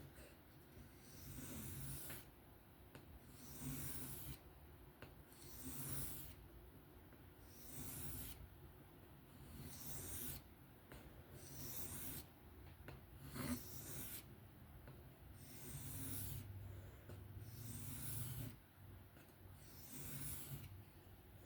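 A 154CM steel knife blade drawn by hand across a whetstone in slow, even strokes, about one every two seconds, blending in the freshly raised bevel. The strokes are faint.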